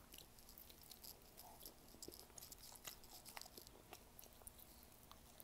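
Faint chewing of a piece of cooked squid, with many small, soft mouth clicks.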